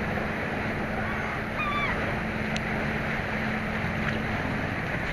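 Surf and water washing steadily, with wind on the microphone. A steady low hum stops about four seconds in, and a brief pitched chirp sounds about one and a half seconds in.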